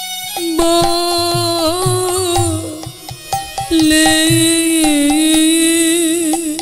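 Bengali devotional kirtan music: two long, slowly wavering melodic phrases, the second beginning after a short break near the middle, over soft hand-drum strokes.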